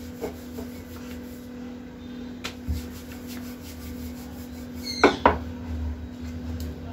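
Wooden rolling pin rolling out chapati dough on a round board, with a few light knocks of the pin. About five seconds in come two sharp knocks in quick succession, the loudest sounds. A steady low hum runs underneath.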